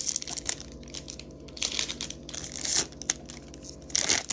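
Foil Pokémon booster pack wrapper crinkling and rustling in a few short bursts as it is handled and opened.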